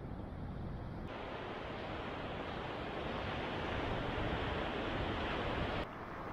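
Ocean surf breaking on a beach: a steady wash of waves that starts abruptly about a second in and cuts off near the end, where it gives way to the lower, duller noise of a car driving on a road.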